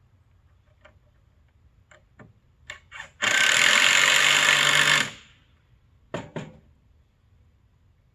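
A small power tool runs in one burst of about two seconds, a little after three seconds in, with scattered clicks and knocks before and after it.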